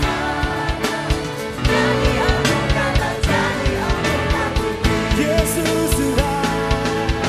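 Live Christian worship music: a band with drum kit plays an upbeat song while voices sing the melody over it.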